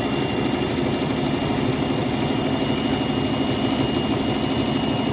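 Domestic electric sewing machine running at a steady speed, its needle stitching through fabric in one continuous run.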